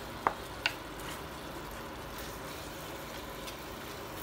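Wooden spoon knocking twice against a plate and pan in the first second, then faint scraping as chopped tomatoes are pushed off the plate into a pan of cooked mutton, over a steady low sizzle of the pan on the gas burner.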